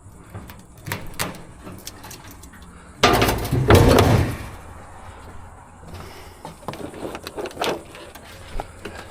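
Scrap being handled and sorted: scattered knocks and clicks, with one loud clatter lasting about a second about three seconds in.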